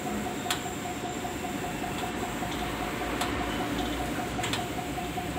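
Manual hydraulic hand stacker being worked to lift a concrete mixer: a few sharp metallic clicks, roughly a second or so apart, over a steady background hiss and faint hum.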